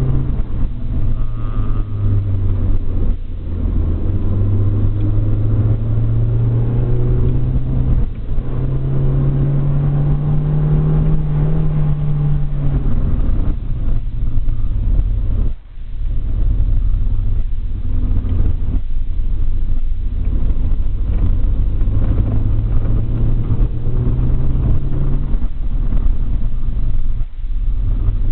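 Car engine heard from inside the cabin while driving, its note rising and falling as it accelerates and eases off, with a few brief drops in sound.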